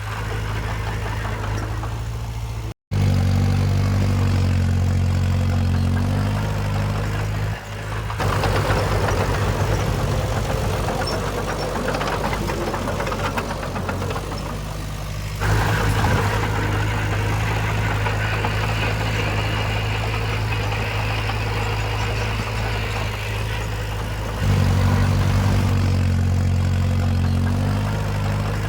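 Diesel engines of heavy earthmoving machinery running steadily, with the sound changing abruptly several times and a brief dropout about three seconds in.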